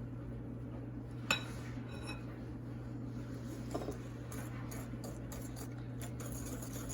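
Kitchen utensils and dishes clinking: one sharp clink about a second in that rings briefly, like metal striking glass, then a softer knock and a few light taps, over a steady low hum.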